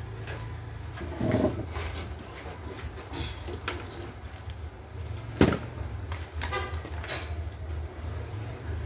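Handling noise from fitting a crossover board and its wires into a wooden speaker cabinet: scattered knocks and rustles, the sharpest about five and a half seconds in, over a steady low hum.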